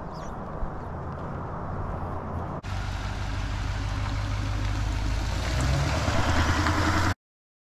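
A pickup truck's engine and tyres as it turns at the corner and drives past close by, growing louder as it passes, until the sound cuts off abruptly near the end. Before that comes a steady low outdoor rumble.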